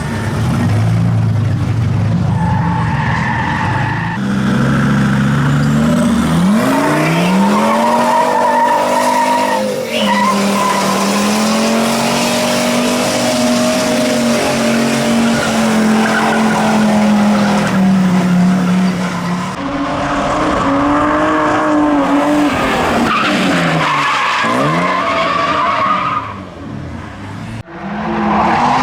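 Drift car engine revving hard with tyres squealing and skidding. The engine pitch climbs about 6 to 7 seconds in and holds high, then drops and climbs again near 24 seconds, and the sound dips briefly near the end.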